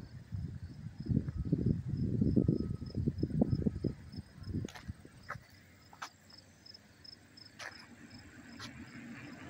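An insect chirping steadily outdoors in a rapid train of short high pulses, about three a second. Wind buffets the microphone in rough low gusts for the first half, and a few sharp clicks come in the second half.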